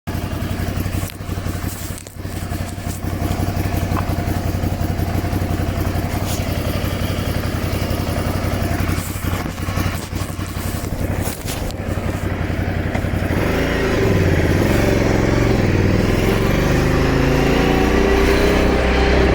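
Ducati Scrambler Sixty2's 400 cc air-cooled L-twin engine idling steadily, with a few sharp clicks, then revved up and down repeatedly from about two-thirds of the way in. The owner finds it makes a strange noise.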